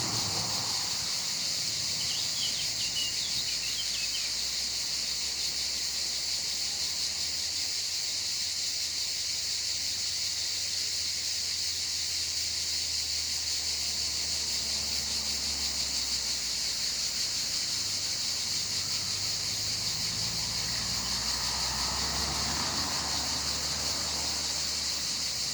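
Steady high-pitched chorus of insects, with a few short bird chirps a couple of seconds in.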